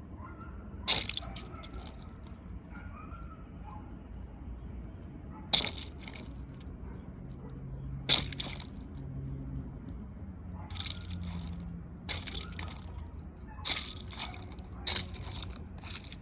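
A crunchy anti-stress squishy dinosaur toy squeezed by hand, giving short crackling crunches about eight times, with the sharpest near one, six and eight seconds in and a quicker run near the end.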